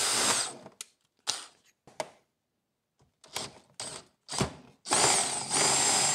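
Cordless drill boring a hole through a plastic dash trim piece, run in several short bursts, then a steady whining run of about two seconds near the end.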